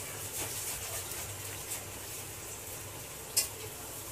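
Steady low background hiss of room tone, with one short click about three and a half seconds in.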